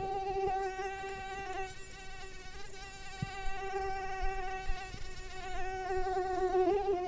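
Mosquito's buzz: one steady, slightly wavering high-pitched whine from its wingbeats.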